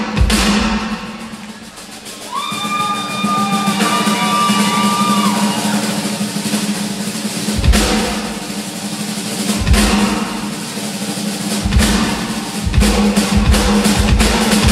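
Live rock drumming on a full drum kit, apparently unaccompanied: cymbal and snare rolls that fall away about two seconds in and build back up, under a steady low hum. Later, bass drum hits come in about two seconds apart, then more often near the end.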